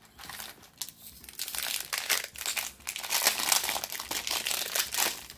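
Plastic packaging bag crinkling as hands unwrap it, in quick irregular crackles that grow louder after about a second.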